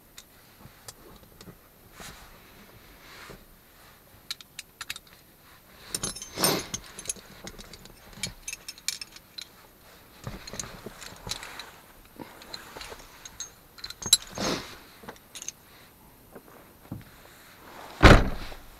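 Scattered clicks, clinks and rustling of someone moving about and handling things inside a Jeep's cabin, with a few louder knocks and a heavy thump near the end.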